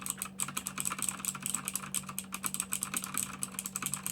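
Fast typing on a mechanical keyboard with Outemu Blue clicky switches and keycaps fitted with rubber O-rings: a quick, even stream of sharp clicks, about ten a second.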